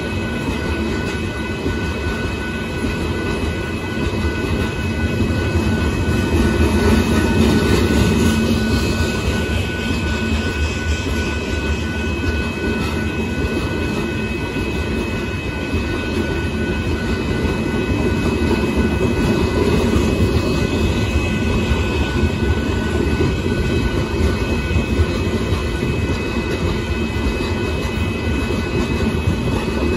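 Loaded limestone hopper cars of a freight train rolling steadily past over the crossing: a continuous low rumble of wheels on rail that swells and eases a little, with steady high-pitched tones sounding over it throughout.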